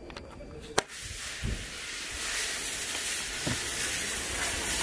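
A single sharp metal click less than a second in as the spring-wire latch clip on the tractor's air cleaner housing snaps shut, followed by a steady hiss that builds up and stays.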